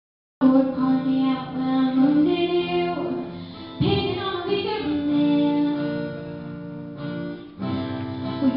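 A high female voice singing to acoustic guitar accompaniment, starting about half a second in; the music changes abruptly about four seconds in and again near the end, as if separate song excerpts are spliced together.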